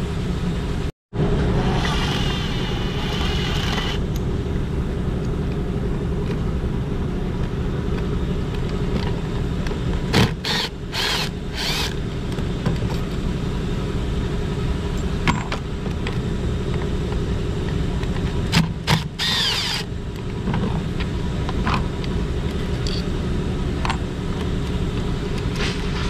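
Air compressor running in the background, a steady mechanical drone. A few short metallic clicks and clinks of hand tools come about ten seconds in and again around nineteen seconds.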